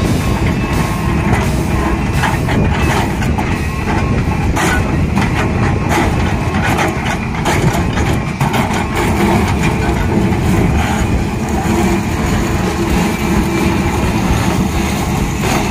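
Hyundai crawler excavator's diesel engine running steadily under load while the bucket works through crushed stone, with scattered knocks and clatter of stones.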